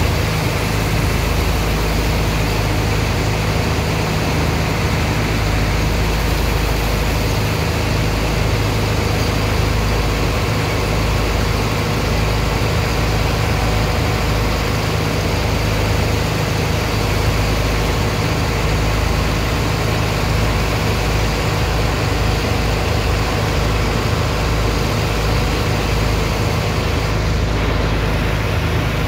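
Heavy pump engine running steadily with a low hum, under the constant rush and splash of a high-pressure water jet washing sand into slurry for dredge-pump unloading.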